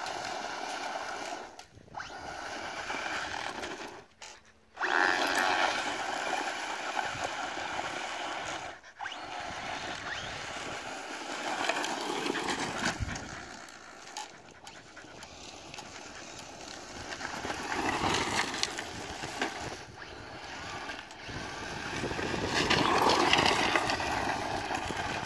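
Traxxas Slash 4x4 VXL RC truck driven hard on dirt: its brushless motor whines, rising and falling with the throttle, over tyres scrabbling and spraying loose dirt. The sound swells as the truck passes close about 18 seconds in and again near the end, and drops away briefly a few times.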